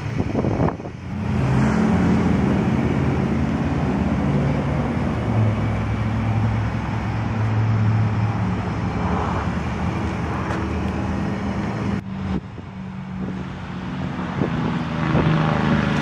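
2011 Hyundai Sonata Hybrid's 2.4-litre four-cylinder gasoline engine running at idle, its low note stepping up and down in pitch a few times. At idle this hybrid runs the engine only now and then, to keep the battery charged.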